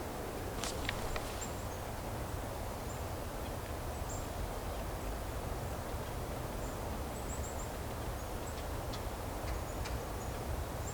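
Winter woodland ambience: a steady low background rumble with scattered thin, very high bird call notes, one quick run of four about seven seconds in, and a few sharp clicks.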